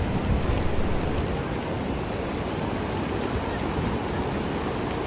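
Muddy floodwater rushing down a town street, a steady, even rush of water.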